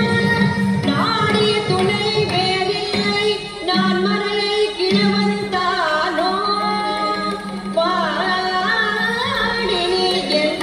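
Background music: a woman singing a Carnatic-style song over a steady held low note.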